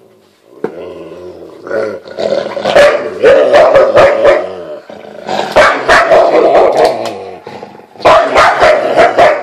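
A wolf and a Rottweiler snarling and growling at each other while contesting a bone, in three loud bouts of snarls with quieter growling between.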